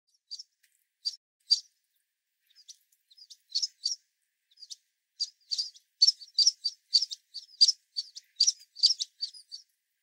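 Sparrows chirping: a few short, high chirps scattered at first, then from about five seconds in a quick run of chirps, about four a second, that stops shortly before the end.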